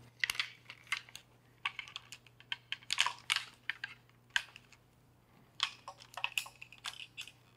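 Peak Design Travel Tripod's carbon-fibre legs being collapsed: the leg cam locks are flipped open and the leg sections slid in, giving a string of irregular light clicks and clacks.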